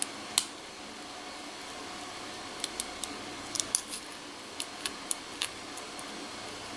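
Small, sharp metallic clicks of a lock pick working the five pins of a cheap Chinese Globe padlock during single-pin picking: one click just after the start, then a quick run of about a dozen clicks in the middle.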